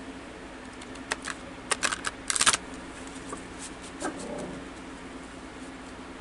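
A tarot deck being shuffled by hand: a quick run of sharp card snaps and clicks between about one and two and a half seconds in, densest and loudest at the end of the run, then a few soft rustles of the cards being handled.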